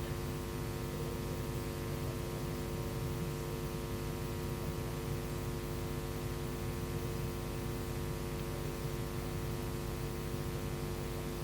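Steady electrical mains hum with an even hiss: a set of fixed low tones that does not change.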